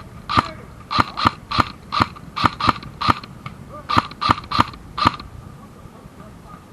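An airsoft gun firing single shots in quick, uneven succession, about a dozen sharp cracks over five seconds, then stopping.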